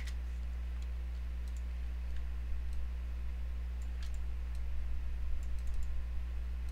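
A few scattered clicks of a computer mouse and keyboard, bunched together about five to six seconds in, over a steady low electrical hum.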